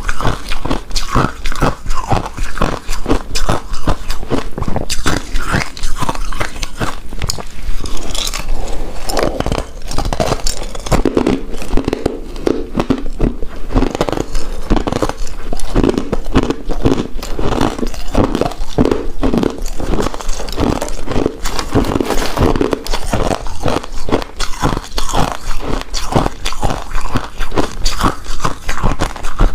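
Close-miked chewing of a soft, chewy coconut-coated rice cake: rapid, continuous wet mouth clicks and smacks.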